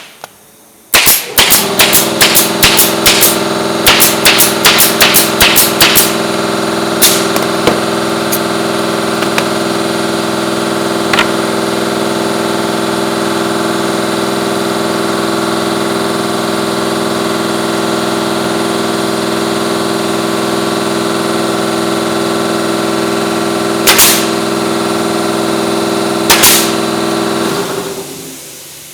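Pneumatic nail or staple gun firing, a quick run of shots in the first six seconds and a few more later, while an air compressor kicks in about a second in, runs steadily and winds down near the end.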